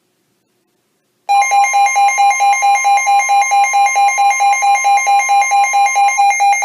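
Weather alert radio sounding its alarm for an incoming National Weather Service warning. A loud, rapid pulsing electronic beep starts suddenly about a second in, over the steady 1050 Hz warning alarm tone, which cuts off near the end while the beeping goes on.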